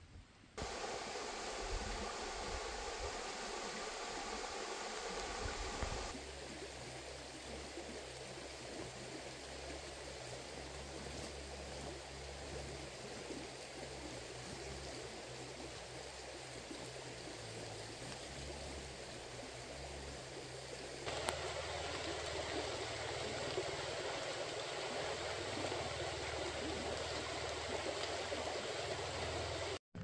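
A river flowing steadily over stones, a constant rushing noise that shifts in tone and loudness twice, at about six and twenty-one seconds.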